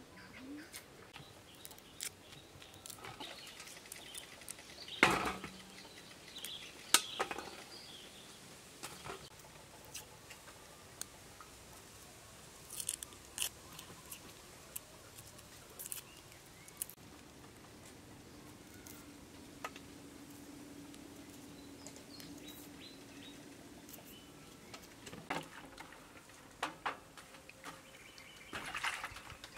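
Hand food-preparation noises: scattered small clicks, taps and rustles as whole tarantulas are handled in a woven basket and pushed onto bamboo skewers, with two sharper knocks about five and seven seconds in.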